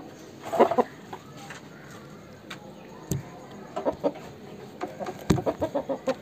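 Chicken clucking in short bursts: one burst about half a second in, then a run of quick clucks from about four seconds on. Two sharp knocks come near the middle and near the end.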